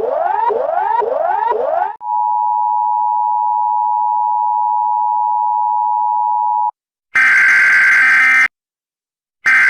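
Emergency Alert System alert played in reverse: a repeating rising electronic sweep about twice a second, then from about two seconds in the steady two-tone EAS attention signal, which cuts off abruptly after nearly five seconds. Then come two loud buzzy digital data bursts of the alert header, each just over a second long and about a second apart.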